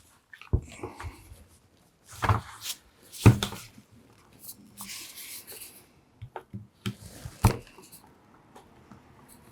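Hands working on the casing of a Makita DTW300 cordless impact wrench during disassembly: several sharp knocks and clicks with short bursts of scraping between them.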